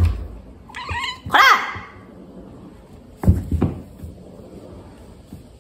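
Ginger kitten giving two short rising-and-falling meows about a second in, then a few low thumps a little over three seconds in as it rolls and grapples a wand toy on the wooden floor.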